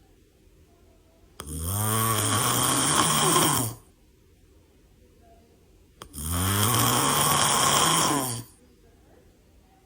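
A person snoring: two long snores, about 1.5 s and 6 s in, each lasting about two and a half seconds and starting abruptly, with a few seconds of quiet between them.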